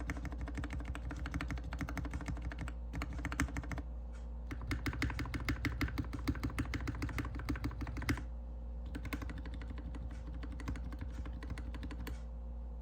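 Typing on a GK61X mechanical keyboard resting on a desk mat. It has stock Cherry MX Hyperglide Black linear switches, a stainless steel plate, a plastic case and DSA keycaps, and both modifier and letter keys are struck. The keys clack in a steady run that quickens to a dense flurry midway, then thins out to scattered presses and stops shortly before the end.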